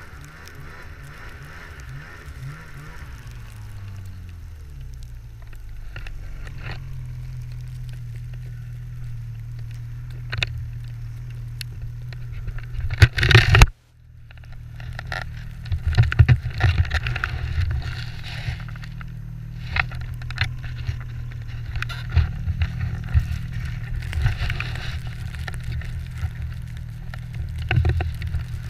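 Ski-Doo 800 snowmobile's two-stroke engine running, falling in pitch over the first few seconds and then holding steady. About 13 seconds in there is a loud jolt and the sound cuts out for a moment, then the engine carries on under a string of sharp knocks and rattles as the sled bounces through snow drifts.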